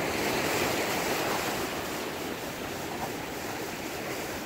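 Ocean surf breaking and washing over a rocky shoreline, a steady rushing wash that eases off slightly through the second half.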